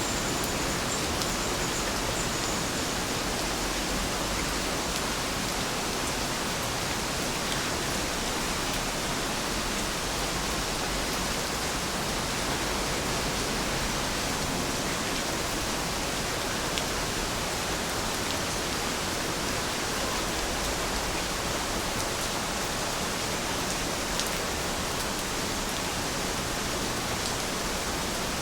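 Steady rain falling, an even hiss with a few separate drop ticks.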